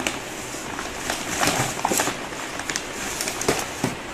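Brown kraft paper wrapping crinkling and rustling as hands pull it open, a run of sharp crackles that gets busier about a second and a half in.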